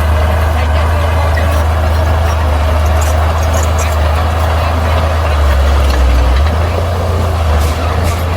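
Bulldozer's diesel engine running steadily with a deep drone, dipping lower in pitch for about a second near the end.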